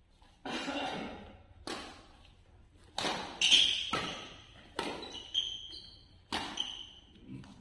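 A badminton rally: a shuttlecock struck back and forth by rackets about eight times, each hit a sharp crack that echoes round the hall, with brief high squeaks of shoes on the court floor.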